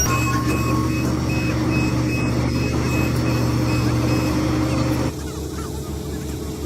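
Heavy construction machine's reversing alarm beeping rapidly, about three beeps a second, over its running diesel engine. About five seconds in, the sound cuts to a quieter low engine rumble.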